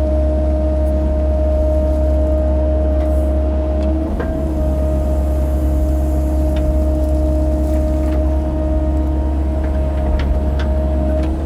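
Mini excavator's engine running steadily under work, with a constant high whine over a deep rumble and a few light knocks as the machine moves mud.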